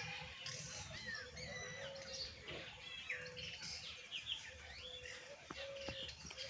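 Several birds chirping and singing at once, many short rising and falling calls overlapping, over a faint low rumble.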